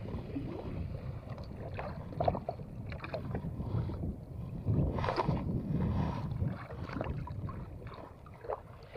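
Wind rumbling on the microphone and water washing against the hull of a small outrigger boat, with scattered light knocks. About four to five seconds in, a sleeve rubs across the camera, giving a louder brushing stretch.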